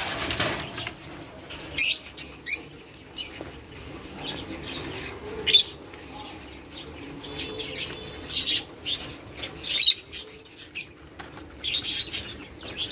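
Doves beating their wings in short, irregular bursts as they scuffle in a cage, the flurries of a fight between resident doves and a newly introduced one.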